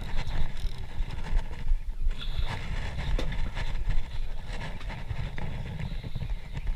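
Low, uneven rumble on a fishing boat at sea, with scattered sharp clicks and knocks.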